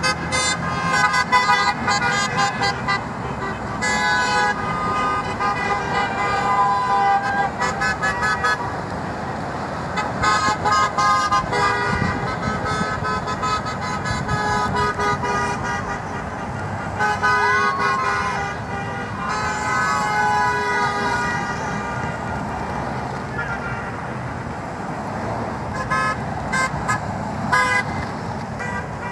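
Car horns honking over and over, several at once, in quick toots and longer held blasts, over the steady noise of passing road traffic.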